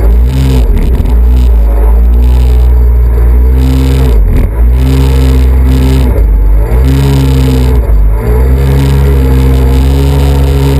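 Kawasaki jet ski engine running hard at speed, its pitch dropping and climbing back several times as the throttle is eased and opened again.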